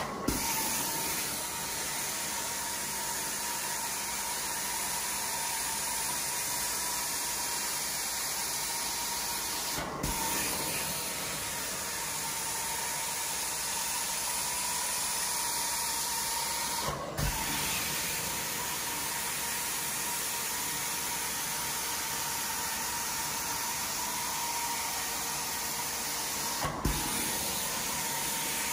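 Carpet-cleaning extraction wand spraying hot water and sucking it back up through the carpet: a steady strong hiss of vacuum airflow with a faint steady whistle. A short thump breaks it a few times, about ten seconds apart.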